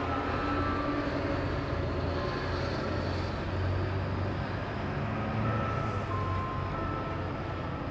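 A tower's chimes playing a tune, heard as a few faint separate notes at different pitches, near the start and again about five seconds in. A steady low rumble underneath is louder than the chimes.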